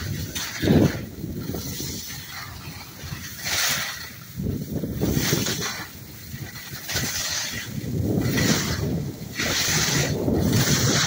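Wind buffeting the microphone during a fast downhill run on snow, with a scraping hiss of edges on packed snow that comes again with each turn, about every second and a half.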